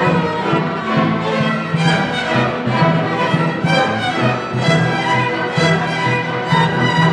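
Middle school orchestra playing, violins carrying the tune over a low line that pulses on and off in the lower strings.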